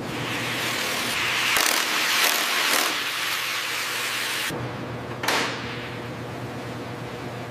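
A steady hiss that swells louder three times, then cuts off abruptly. It gives way to a lower steady hum with one more short burst of hiss.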